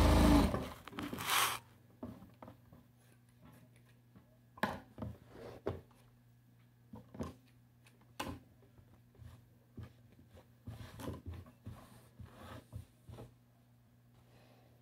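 Sewing machine stitching for about half a second, then stopping. After that come quiet rustles of fabric patches being lifted and laid out, with scattered light clicks and taps over a faint steady hum.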